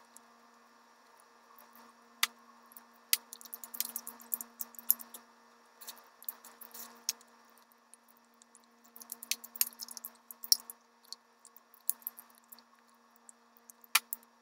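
Close-miked mouth sounds of someone eating roast chicken: moist smacks and sharp chewing clicks coming in irregular clusters with short pauses, with one louder click near the end.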